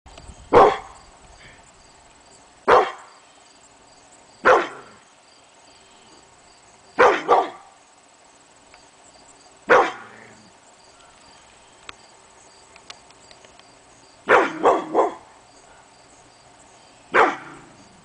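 Pit bull barking in single deep barks a few seconds apart, with a quick double bark about seven seconds in and a fast run of three barks near fourteen seconds.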